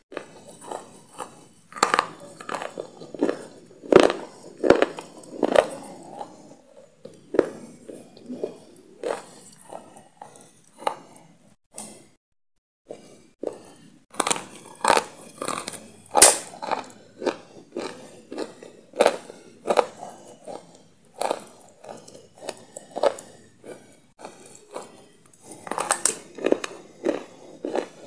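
Close-up crunchy biting and chewing of a hard white stick: a quick run of sharp crunches and crackles, broken by a brief silence about twelve seconds in.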